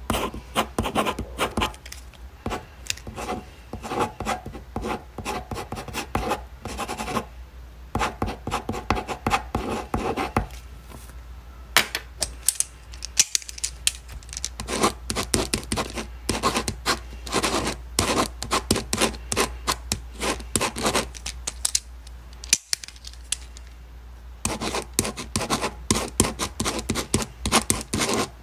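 Ballpoint pen writing on a paper exam sheet: quick scratching strokes in bursts, with several short pauses.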